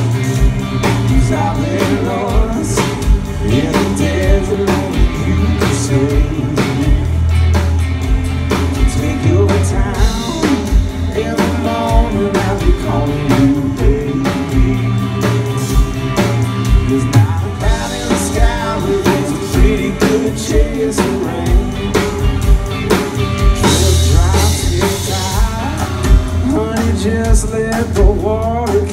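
Live performance of a country-rock song: a man singing with acoustic guitar, over a steady drum beat.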